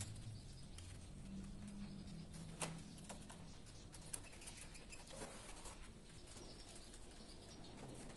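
Faint clicks and light knocks of a screwdriver working at the terminals of plastic miniature circuit breakers in a distribution board. The sharpest click comes about two and a half seconds in, over a low hum during the first few seconds.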